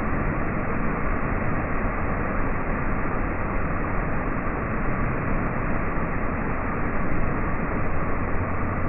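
Heavy water from a tipping-bucket dump pouring and splashing onto a water-park play structure: a steady rush of falling water, slowed down with the slow-motion footage.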